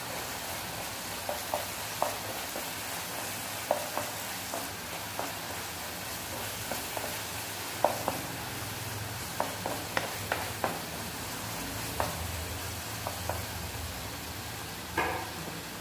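Tomato-onion masala sizzling in a nonstick frying pan as a wooden spatula stirs it. Light, irregular scrapes and taps of the spatula against the pan sound over the steady sizzle.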